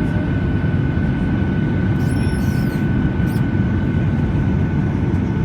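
Steady low rumble of jet engines and rushing air heard inside an airliner cabin during the descent, with a thin steady whine above it.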